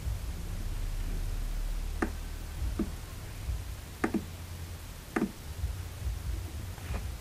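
Computer mouse clicking: about six short, sharp clicks spread out, two of them close together about four seconds in, over a steady low hum.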